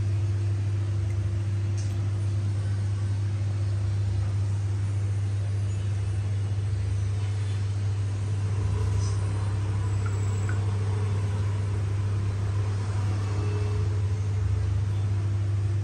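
Steady low hum of a running machine, holding one pitch and level with a fainter higher tone above it.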